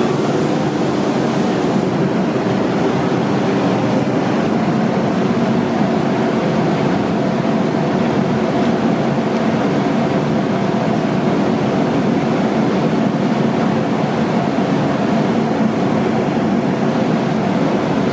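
Machinery running with a loud, steady, unbroken noise that has a faint hum in it.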